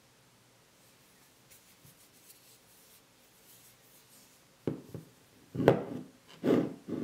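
A stone being handled on a countertop: a sharp knock about four and a half seconds in, then three louder scrapes and knocks of rock on the hard surface near the end.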